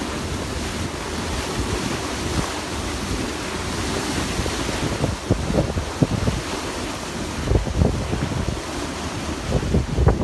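Steady rush of wind and water on the open deck of a moving boat, with wind gusts buffeting the microphone in low thumps from about five seconds in.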